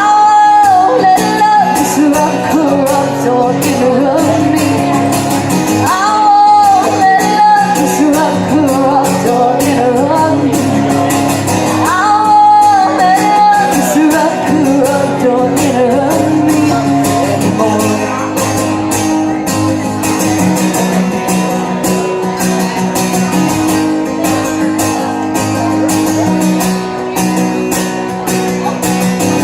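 Live music: a singer holding long, sliding notes without clear words over a strummed guitar and steady bass accompaniment.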